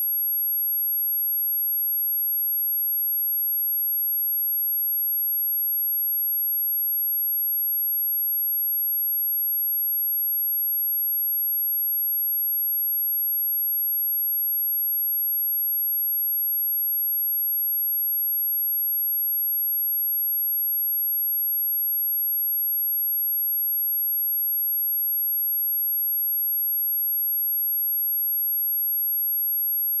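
Steady pure sine-wave test tone at 11,495 Hz, a single high-pitched whistle held at constant level without change.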